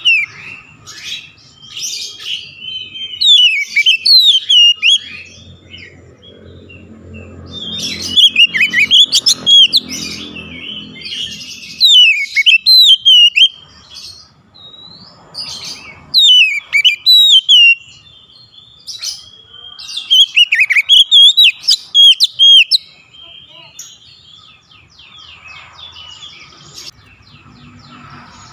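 Oriental magpie-robin (kacer) singing: loud, varied phrases of gliding whistles and warbles come in bursts of one to four seconds, with short pauses between them.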